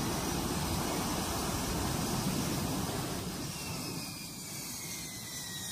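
F-35B jet engine running as the fighter hovers and lands vertically, a steady rushing roar. About three seconds in the roar eases off, and faint high whines fall slowly in pitch as the engine throttles back after touchdown.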